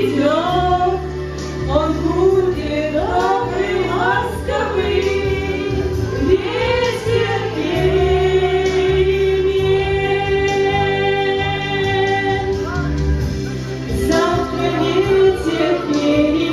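A song with a female voice singing over a steady electronic bass accompaniment; about halfway through she holds one long note for several seconds.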